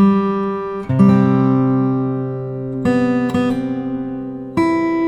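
Background music on acoustic guitar: chords strummed and left to ring, with a new chord every second or two.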